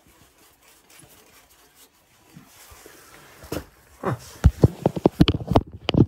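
Rapid run of sharp clicks, starting about three and a half seconds in and coming several a second toward the end: the electronic spark igniter sparking at the pilot of a Williamson gas steam boiler. The pilot lights but its flame is not being sensed, so the boiler will not fire.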